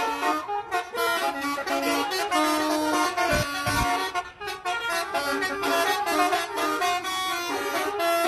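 Bus telolet horns playing a tune, a continuous string of held notes stepping up and down in pitch.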